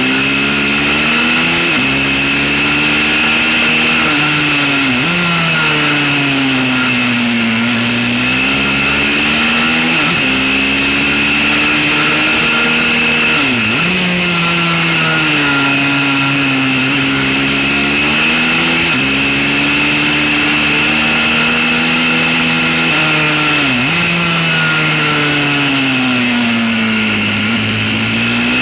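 Pit bike's small single-cylinder engine running hard on board, its pitch swelling up and down through the corners, with four sharp dips at gear changes.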